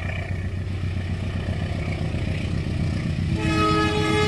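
Low steady rumble of the train, then about three seconds in the CC203 diesel locomotive's horn sounds, a chord of steady tones held to the end.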